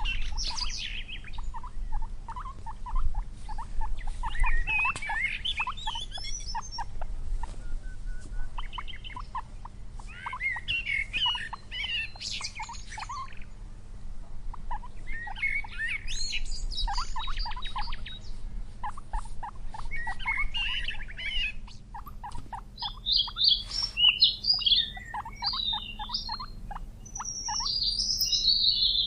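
Birds calling and chirping: runs of short repeated notes with higher chirps over them, and a longer call falling in pitch near the end.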